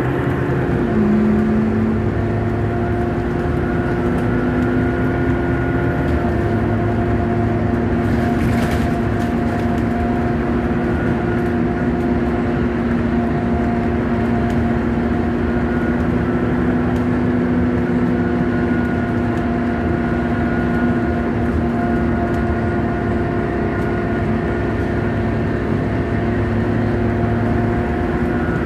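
Scania K230UB city bus's engine and ZF automatic gearbox heard from inside the cabin while driving: a steady drone with whining tones that shift in pitch about a second in and again around six seconds. A brief hiss comes about eight seconds in.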